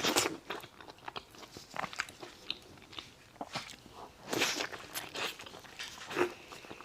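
Close-miked eating sounds: bites and chewing of a molten chocolate-filled dessert, with scattered small crunchy clicks and a few louder bites.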